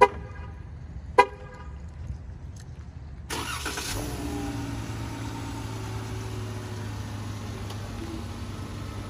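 Two short horn chirps from a 2021 Dodge Charger SXT, about a second apart. About three seconds in, its 3.6-litre V6 starts and settles into a steady idle.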